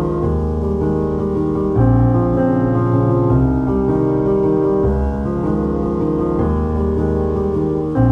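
Background piano music: sustained chords over low bass notes that change every second or two.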